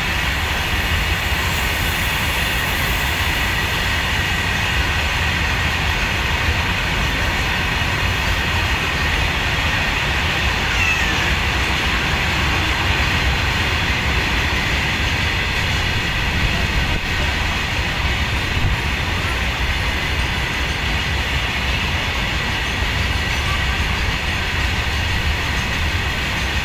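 Loaded BOXNHL open freight wagons rolling past on the rails: a steady rumble and clatter of steel wheels on track, with a thin steady high whine over it.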